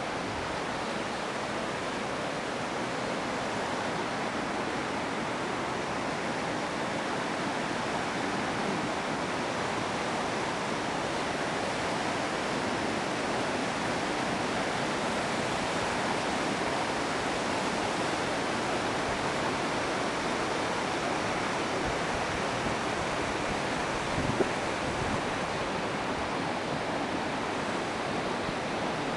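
Steady rushing of water, an even hiss that neither rises nor falls, with one small click about 24 seconds in.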